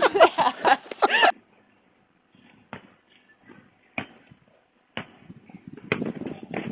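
Excited shouting, cut off abruptly just over a second in. Then a few sharp knocks about a second apart and a louder clatter near the end, picked up by an outdoor security camera's microphone.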